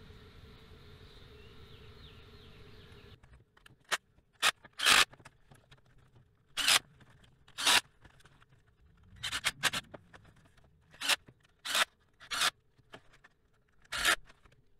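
Ridgid cordless ratchet run in about ten short spurts, each a fraction of a second, driving new exhaust manifold studs into the cylinder head. A faint steady hum before the spurts cuts off suddenly about three seconds in.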